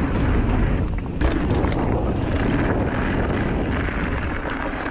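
Wind rushing over the camera microphone on a fast mountain bike descent, with tyre noise and the bike knocking and rattling over the rough trail; a cluster of sharp knocks comes a little over a second in.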